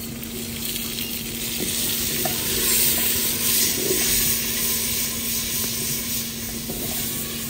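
Onion, tomato and spice masala sizzling in a clay pot over a wood fire, with garlic just added, while a wooden stick stirs it round the pot. The sizzle is steady and swells a little in the middle.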